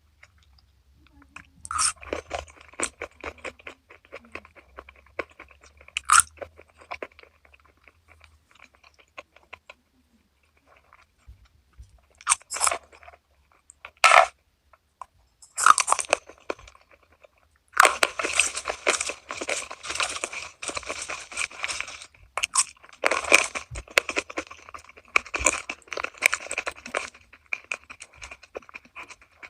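Close-miked crunching and chewing of crispy food, in bouts of bites with short quiet pauses between them; the densest crunching comes in the second half.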